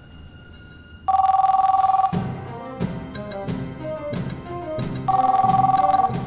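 Electronic telephone ring: a loud two-tone beep about a second long, sounding twice about four seconds apart. A jazzy music score with drum hits and a walking bass comes in right after the first ring.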